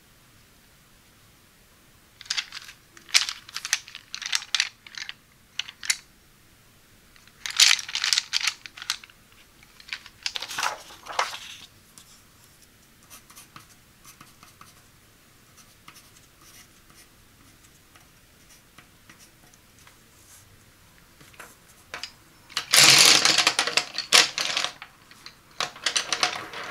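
Wooden Crayola colored pencils clacking and rattling against each other in short bursts as a handful is handled. In the middle a pencil scratches faintly on paper. Near the end comes a louder clatter as the pencils are spread out on a sheet of paper.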